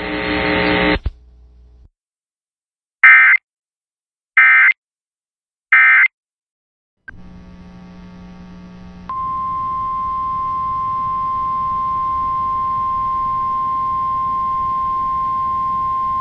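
Three short bursts of EAS digital data tones, the end-of-message code that closes a warning, come after a brief silence. Then there is a faint radio hum, and about nine seconds in the steady single-pitch NOAA Weather Radio warning alarm tone begins.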